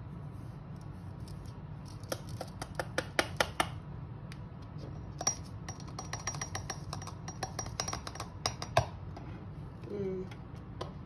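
Runs of light taps and clicks as an electric spice grinder's bowl is knocked and shaken against a plastic funnel in a glass mason jar, dislodging ground dried jalapeño powder. The taps come in quick runs from about two seconds in until about nine seconds in, over a steady low hum.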